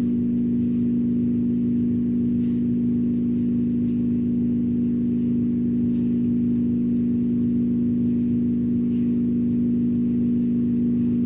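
Background music: a steady low drone of several held tones, unchanging throughout.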